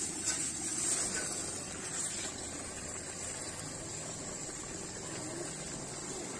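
Steady hiss and bubbling of a large aluminium pot of curry liquid boiling over a wood fire, a little louder about a second in as raw chicken pieces are tipped in from a plastic bag.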